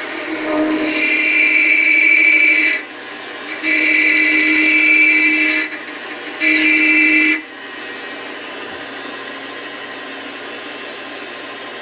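Lathe cutting tool squealing against a spinning metal bar: three loud, high-pitched squeals in the first seven seconds or so, then the lathe running on more quietly as the tool stops screeching. It is a dry cut in need of lubrication.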